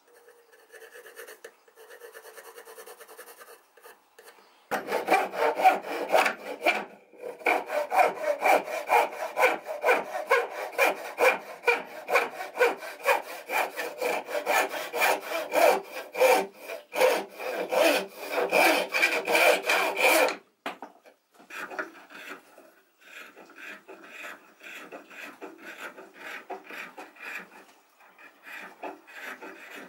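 A pencil scratches faintly on an oak blank, then a hand saw cuts through the oak in quick, loud, even strokes that stop abruptly about two-thirds of the way in. After that, quieter scraping strokes follow as a small brass-bodied edge tool shaves curls of oak from the spoon's bowl.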